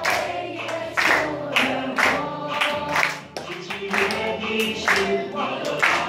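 A group singing a Mandarin Christian song together, clapping hands on the beat about twice a second.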